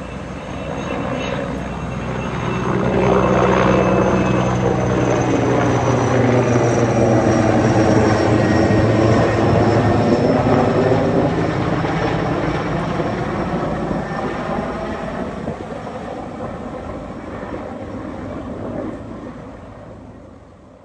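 An aircraft engine passes overhead: a continuous drone with a high whine that slowly drops in pitch, building over the first few seconds and fading away toward the end.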